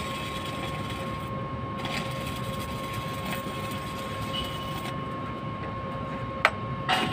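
Electric arc welding on a steel frame: a steady hiss from the welding arc, which breaks off briefly about a second and a half in and stops about five seconds in. Two sharp knocks follow near the end.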